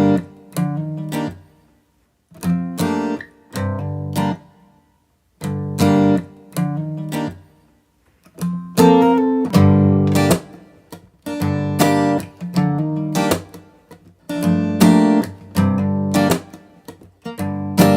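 Acoustic guitar music: strummed chords in short phrases with brief pauses between them.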